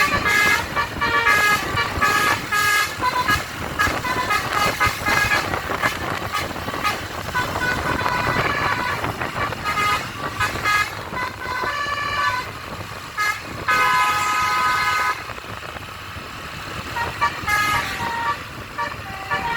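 Basuri musical air horn on a bus sounding a quick melody of short toots that jump from pitch to pitch. About 14 seconds in it holds one long multi-tone blast, then after a brief lull plays a few more toots near the end.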